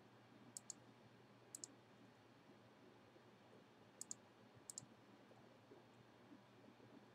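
Computer mouse clicking four times, each click a quick sharp pair of ticks, over faint room tone.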